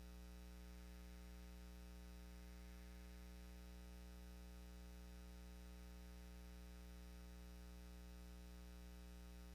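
Near silence: only a faint, steady low hum that does not change.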